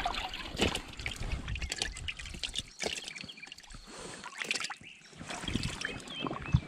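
Small boat being rowed: oars dipping and dripping, with irregular light splashes and knocks.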